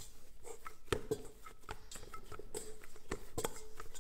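A hand gathering and pressing shortcrust pastry dough in a stainless steel mixer bowl: soft, irregular knocks and taps against the metal, with a few sharper ones, about a second in and again after three seconds.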